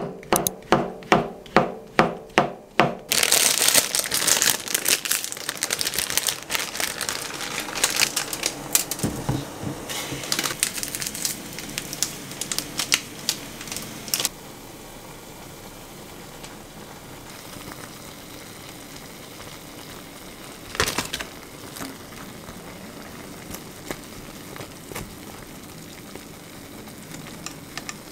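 Kitchen knife chopping shiitake mushrooms on a wooden cutting board, two to three even chops a second. Then a plastic instant-noodle packet crinkles and tears for about ten seconds, after which it goes quieter, with one short rustle near the middle of the remaining stretch.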